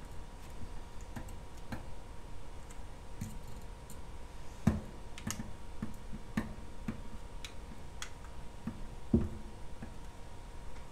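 Small irregular clicks and light knocks of a hand tool working the corner screws of a metal FEP film frame as they are snugged down, with a few sharper knocks, the loudest about halfway through and again near the end.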